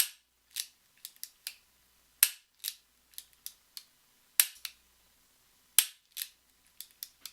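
Empty five-shot Ruger revolver being dry fired over and over: a series of sharp metallic clicks, with a louder snap of the hammer falling on an empty chamber about every two seconds and smaller clicks of the action between.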